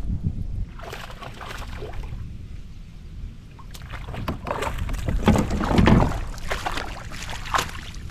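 Water splashing and sloshing around a pedal kayak, with handling knocks on the hull, in irregular bursts that are loudest about five to six seconds in.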